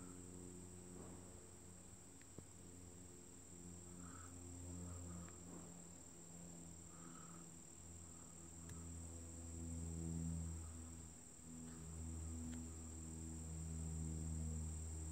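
A steady high-pitched insect chorus trilling without a break. Underneath it runs a low droning hum that grows louder around the middle and again near the end.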